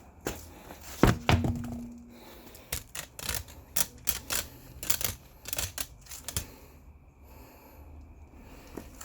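Clicks and knocks of things being handled: one loud knock with a short ringing tone about a second in, then a run of light, uneven taps and clicks.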